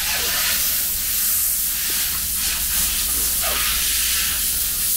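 Steady airy hiss with a low hum underneath, from running shop equipment.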